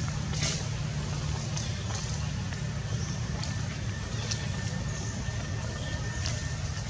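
A steady low engine hum, with faint scattered clicks over it.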